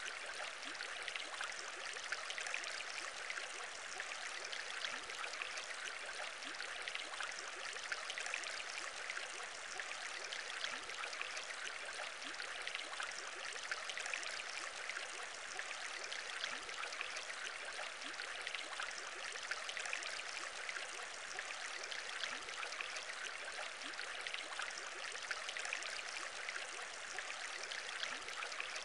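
Steady aquarium bubbling: a continuous stream of small air bubbles rising and gurgling through water, even in level throughout, with no firework bangs.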